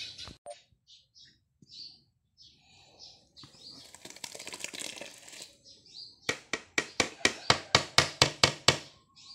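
Short chirps at first, then a rushing noise for about two seconds as the blended greens-and-garlic mash slides out of a blender jar into a bowl of feed. Then a fast run of about a dozen sharp knocks, about five a second and the loudest part, as the jar is tapped against the bowl to shake out the last of the paste.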